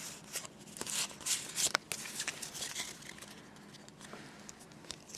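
Foil wrapper of a Pokémon booster pack crinkling and tearing open, loudest in the first two seconds, then softer rustles and small clicks of cards being handled.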